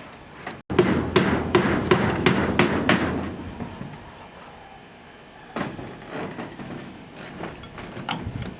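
Hammering: a quick run of sharp hammer strikes, about three a second, for two or three seconds, followed by fainter, scattered knocks.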